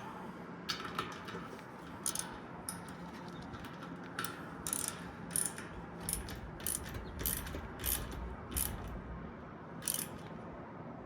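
Ratchet wrench clicking in short, uneven runs, with a dozen or so clicks spaced roughly half a second to a second apart.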